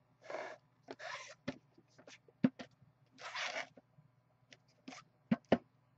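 Hands handling two shrink-wrapped cardboard boxes of trading cards. There are three short scraping rustles of the plastic wrap, and several sharp light knocks as the boxes are tapped or set against each other, two close together near the end.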